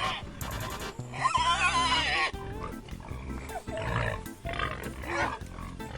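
Background music with a farm animal's calls over it; the loudest is one long wavering cry from about one to two seconds in, followed by shorter calls.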